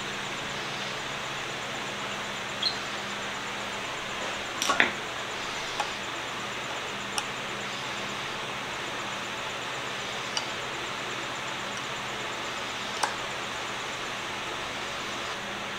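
Small sharp clicks and taps, about six in all, as a brass butt plate is held against the end of a wooden spirit level and screwed on with a small screwdriver; the loudest is a quick cluster about five seconds in. A steady hiss runs underneath.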